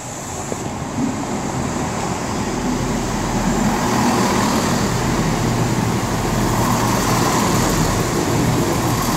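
Three-car CrossCountry Class 170 Turbostar diesel multiple unit pulling into the platform: its engine and wheel noise grows louder over the first few seconds, then holds steady.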